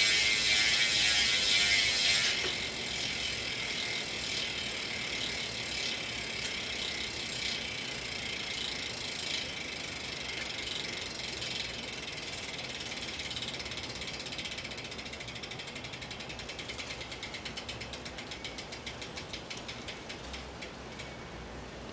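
DT Swiss 370 rear hub with a 54-tooth star ratchet freewheeling as the wheel coasts down: a continuous high-pitched buzz, louder for the first two seconds, that fades and slows until the separate ratchet clicks can be picked out near the end.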